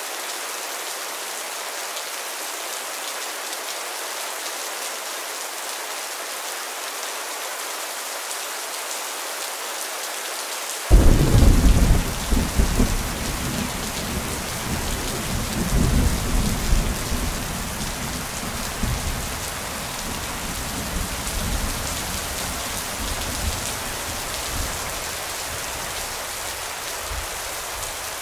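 Steady rain falling, with a clap of thunder breaking suddenly about eleven seconds in and rumbling on in swells that slowly fade.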